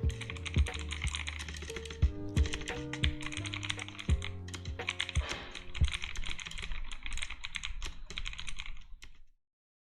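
Fast typing on a mechanical keyboard with clicky Outemu Blue switches on a plastic plate, unlubed, without stabilizers or dampening, over background music. The typing and music cut off about nine seconds in.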